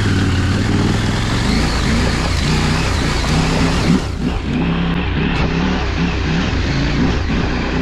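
KTM 890 Adventure's parallel-twin engine revving up and down over and over as the bike is ridden hard up a rough, wet trail, over a steady rush of noise.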